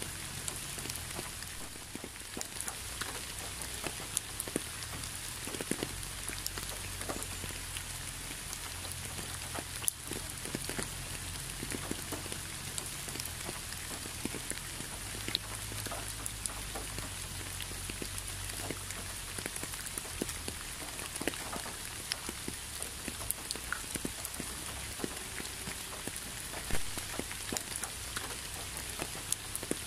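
Steady rain falling, with many separate drops striking close by in an uneven patter; one drop lands louder near the end.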